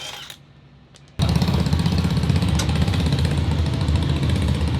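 The Honda S2000's swapped Ferrari/Maserati F136 V8 running at a steady, even speed with a low, heavy note. It cuts in abruptly about a second in and holds level, with no revving up or down.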